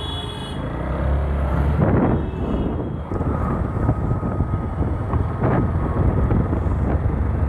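A motorcycle riding at about 30 km/h in city traffic: its engine running steadily under wind rushing on the microphone, with other traffic around it.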